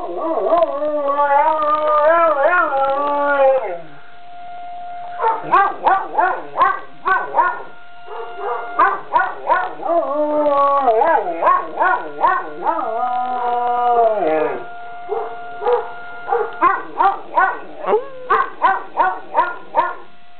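Young dog howling at a siren: long wavering howls that rise and fall, broken by runs of short yaps. A faint steady siren tone holds underneath from about a quarter of the way in.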